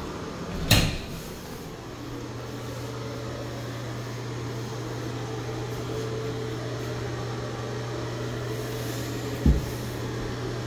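A sharp knock about a second in, then a bathroom exhaust fan starts and runs with a steady low hum; a dull thump near the end.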